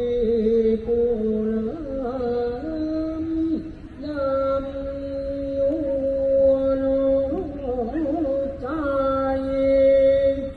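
Thai royal barge chant (he ruea) sung in long held notes that waver and slide between pitches, with few breaks.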